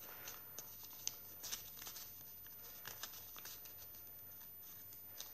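Faint rustling of paper pages being turned by hand in a small, chunky handmade junk journal, with a few soft clicks as pages fall.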